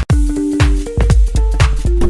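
Electronic dance music with a steady kick-drum beat, a little over two beats a second, under held synth notes. It drops out for an instant right at the start.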